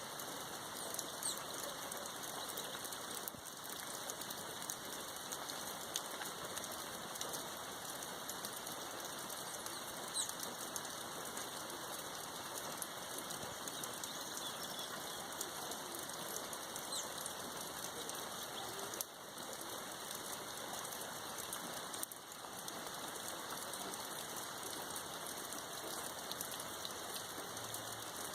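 Steady rain falling: an even hiss with scattered faint ticks of drops, dipping briefly twice in the second half.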